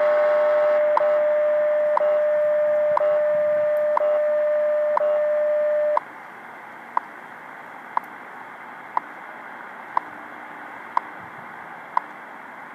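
Shortwave UTC time-signal broadcast over a radio: a steady audio tone with a sharp tick every second, over static hiss. About six seconds in the tone stops and the once-a-second ticks carry on alone over the hiss.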